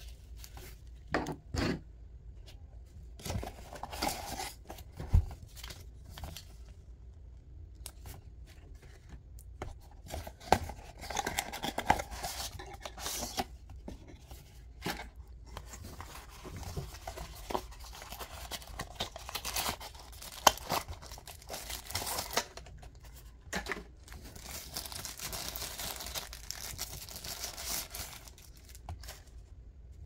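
Unboxing handling noise: a nylon holster and a cardboard box handled, opened and rustled, with irregular rustling, tearing and scraping and scattered sharp clicks and taps. A longer spell of steady rustling comes near the end.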